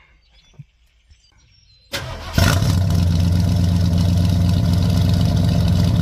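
1973 Ford Torino's engine starting about two seconds in, catching almost at once and settling into a steady idle.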